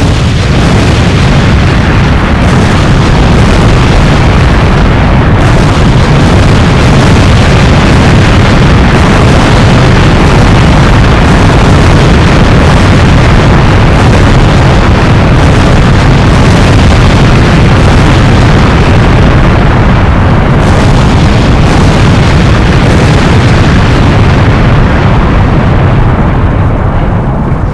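Loud, continuous deep rumbling roar of a staged earthquake, with no let-up until it dies away at the end.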